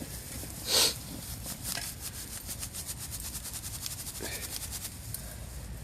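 A firesteel (ferro rod) struck against tinder: one short, loud rasping scrape about a second in, then a few fainter scrapes and fine crackling ticks.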